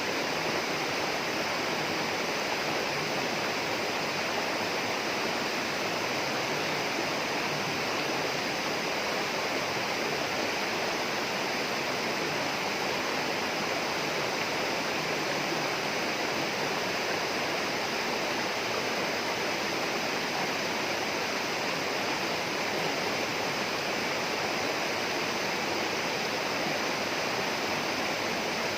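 Steady, unbroken rush of flowing water in a tropical rainforest, a stream or waterfall running continuously with no other distinct sounds.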